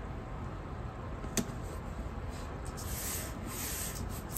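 Fingertips rubbing a paper sticker flat onto a planner page, a soft dry rubbing, with a light tap about a second and a half in and stronger rubbing in the second half.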